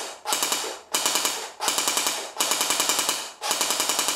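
D|Boy D90 P90-style electric airsoft gun firing on full auto in about five short bursts, its gearbox cycling rapidly. It is heard close up, with the gearbox right beside the ear.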